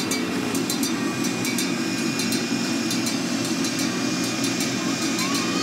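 Casey Jr. Circus Train cars rolling along the track: a steady running rumble, with clusters of short clicks and rattles from the wheels and cars.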